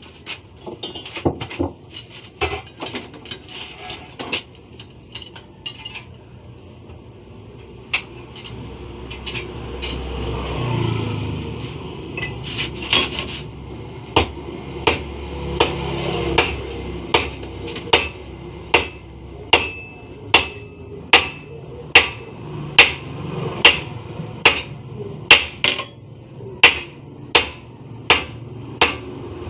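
Blacksmith's hammer striking metal on an anvil. Irregular blows come first, then from about halfway a steady rhythm of strikes, a little over one a second, each with a short metallic ring. A low rumble swells and fades in the middle.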